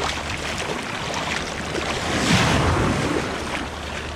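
Shallow beach surf washing in and splashing around a freshly bled fish being rinsed in the water, with a wave swelling louder about two seconds in.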